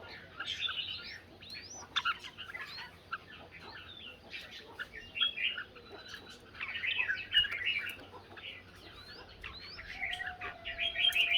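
Red-whiskered bulbuls singing against each other in competitive song, in repeated bursts of quick chirps and gliding whistles.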